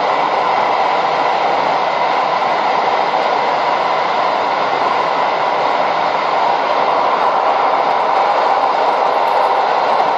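Steady running noise heard inside a passenger coach of a moving train: the loud, even rumble and hiss of the wheels on the rails and the carriage under way.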